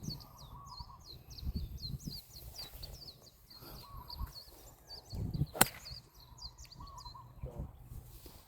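A single sharp crack of a 5 wood striking a golf ball about five and a half seconds in. Birds chirp rapidly and steadily in the background.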